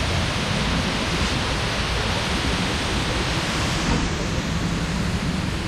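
Steady rush of falling water from the waterfalls pouring down an artificial volcano into a pool, an even hiss with no breaks.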